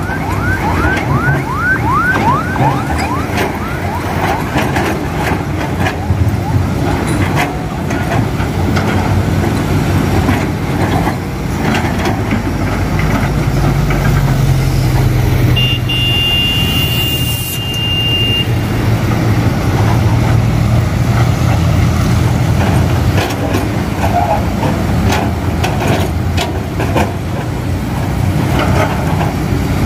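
Diesel engine of a rock-loaded Mitsubishi Fuso dump truck running as it drives over rough dirt, growing louder about halfway through, with scattered knocks and clanks. A run of quick high squeaks near the start, and a short hiss with a steady high beep about halfway through.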